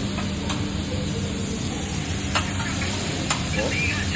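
Noodles and vegetables sizzling on a hibachi griddle, a steady frying hiss, with a few sharp clicks of metal spatulas striking the hot griddle.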